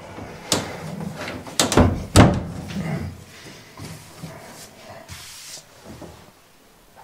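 A plastic tub-surround wall panel being pushed and handled at its corner: a few sharp knocks and thumps, the loudest about two seconds in, then lighter taps and rubbing.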